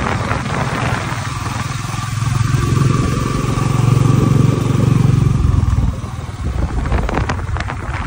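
Motorcycle engine running as the bike is ridden along a road, a steady low hum that grows louder in the middle and eases off about six seconds in.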